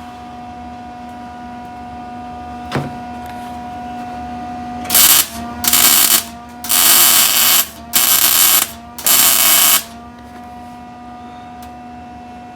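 MIG welder laying five short stitch-weld bursts, each under a second, on the steel frame rail and subframe connector of a 1970 Dodge Challenger unibody, over a steady electrical hum. A single click comes a few seconds before the first burst.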